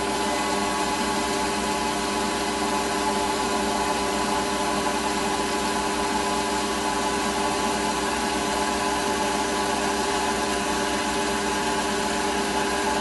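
Metalworking lathe running with a steady whine from its motor and gearing while it takes a light finishing facing cut across the end of a metal bar, the cross-slide wound in by hand.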